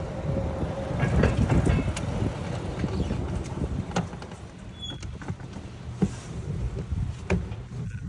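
Golf cart driving along: a low, uneven rumble of the cart rolling, with a few sharp knocks and rattles from its body. The loudest knock comes about six seconds in.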